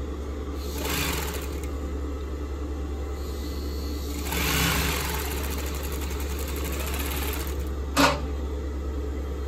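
Juki industrial sewing machine stitching a test seam in two runs, a short one about a second in and a longer one from about four to seven seconds, over a steady low hum. A single sharp click near the end.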